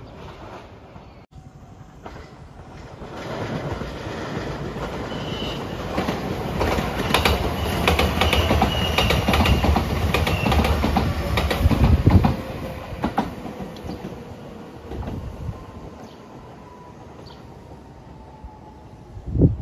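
JR 227 series "Urara" electric train passing close by, its wheels clacking over the rail joints, loudest in the middle. It then fades as it moves away, leaving a slowly falling whine.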